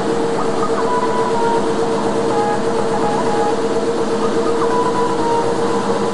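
Double-axis wood CNC lathe running: a steady machine noise with a strong steady hum, and short whines that come and go and step up and down in pitch.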